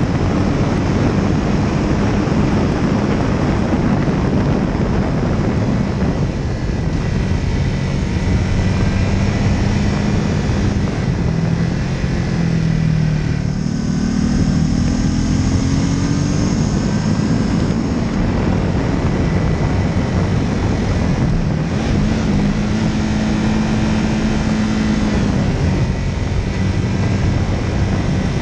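Light aircraft's engine and propeller running in flight, the engine pitch shifting and rising for a few seconds in the middle, under heavy wind rush on the microphone.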